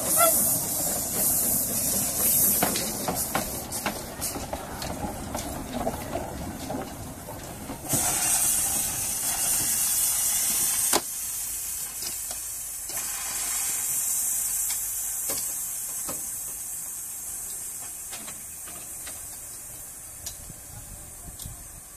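1917 Kerr Stuart narrow-gauge steam locomotive hissing steam while it runs slowly over pointwork, with clicks from the wheels and track. About a third of the way in a louder hiss of escaping steam starts, then cuts off suddenly with a clunk about halfway through. After that a fainter hiss fades away.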